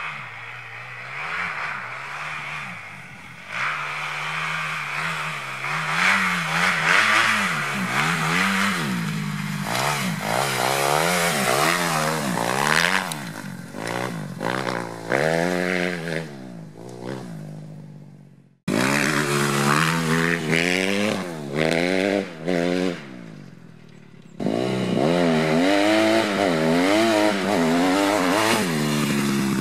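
Kawasaki KX250F dirt bike's single-cylinder four-stroke engine with an FMF Megabomb exhaust, revving hard and repeatedly climbing and dropping in pitch as it accelerates and shifts through the gears. The sound breaks off suddenly twice where clips are cut together.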